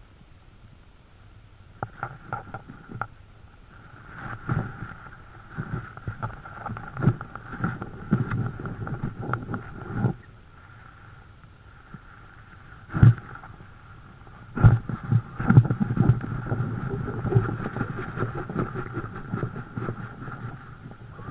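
Rustling, scraping and knocking inside an owl nest box as an owl shifts about, with two sharp knocks about 13 and 15 seconds in. A steady high two-tone hum runs underneath.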